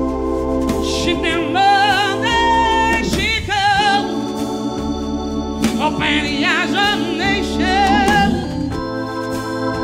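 Live blues: a woman singing with wide vibrato over held chords on a Viscount Legend organ, with a drum kit behind.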